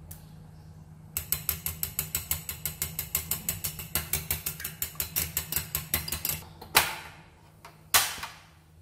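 Metal spoon beating raw eggs in a ceramic bowl: a fast, even clinking of about seven strokes a second as the spoon strikes the bowl, stopping after about five seconds. Two louder knocks follow near the end.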